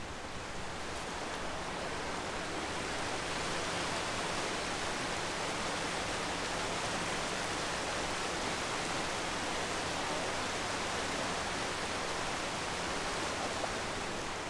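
A steady, even rushing hiss that swells slightly in the first few seconds and then holds level.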